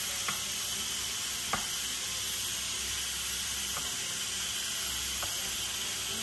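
Steady hiss of steam from a pot of vegetable broth cooking on the stove, with a few faint clicks a second or two apart.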